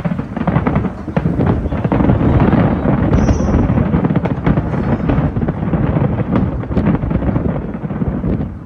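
Fireworks going off: a dense run of cracks and bangs over a continuous low rumble.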